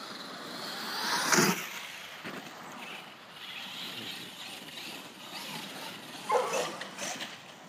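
Small radio-controlled monster truck running on gravel, its motor whine and tyre noise rising and falling as it speeds up and slows, loudest about a second and a half in. Two short sharp sounds come near the end.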